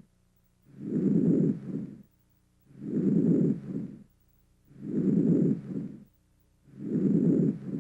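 Normal vesicular breath sounds heard through a stethoscope: four low-pitched breaths about two seconds apart. Each is a longer rushing inspiration followed by a short, fainter bit of expiration.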